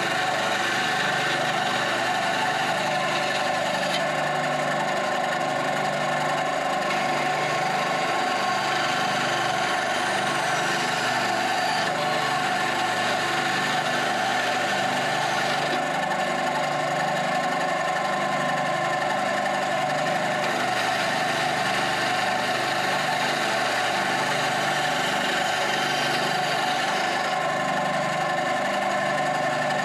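Bandsaw running steadily, its blade cutting slots into African mahogany blanks.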